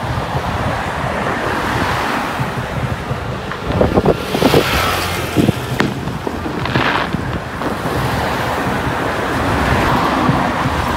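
Road traffic passing close by: a steady rush of car tyres and engines, with wind buffeting the microphone. It grows louder for a few moments about four seconds in and again around seven seconds.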